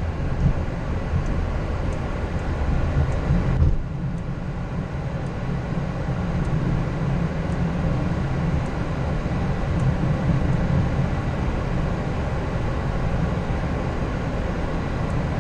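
Steady low rumble in a Boeing 737-800's cockpit as the airliner taxis with its engines at idle, with a brief dip in level about four seconds in.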